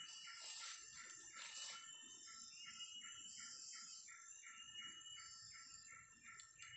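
Faint forest wildlife chorus: a short high call repeated about three times a second over a steady high-pitched ringing.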